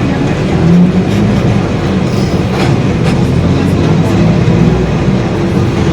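Mercedes-Benz OF-1721 city bus under way, heard from inside: the diesel engine and drivetrain running steadily with a low hum, the rear differential growling, and the body rattling and clicking.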